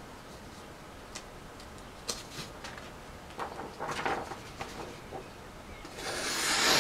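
Sheet of printer paper rustling and handled with a few light clicks, then near the end a Bark River Lil Canadian knife slicing through the paper with a loud, rising scraping hiss: a cut test of the freshly resharpened edge.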